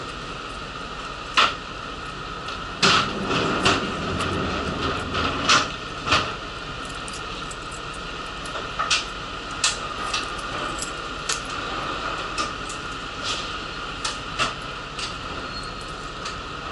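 Steady hum inside a city bus, with a run of sharp clicks and knocks over the first six seconds, then lighter scattered rattles.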